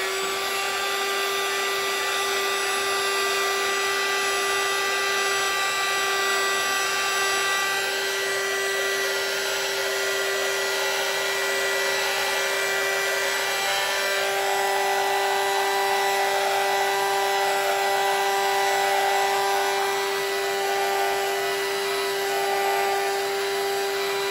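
Handheld electric heat gun running steadily over freshly poured resin in coaster molds: a constant motor whine over the rush of blown air.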